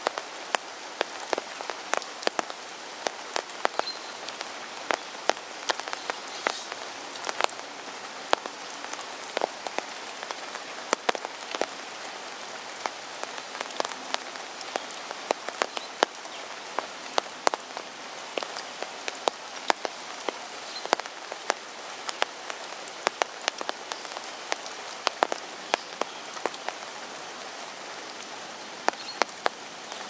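Steady rain falling on the river's surface, an even hiss with frequent sharp, irregular ticks of single drops.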